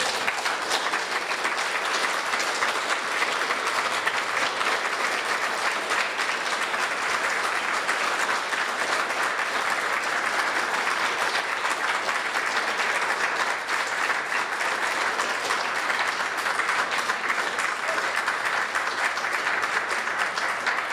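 Audience applauding steadily: closing applause for a speaker who has just finished her talk.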